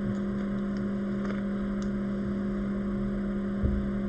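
Steady electrical hum with a fan-like whir from repair-bench equipment, with a single soft knock about three and a half seconds in.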